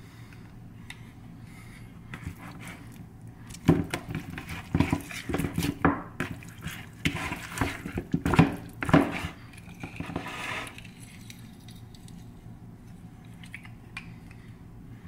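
Raw chicken leg quarters being put into a plastic mixing bowl: a run of wet slaps and thuds against the plastic over about six seconds.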